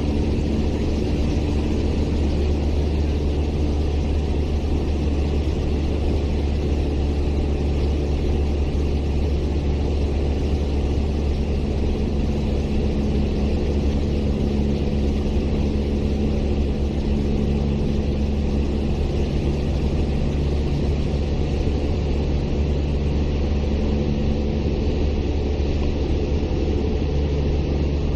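Light aircraft's piston engine and propeller running steadily in flight, heard inside the cabin as a loud, even drone.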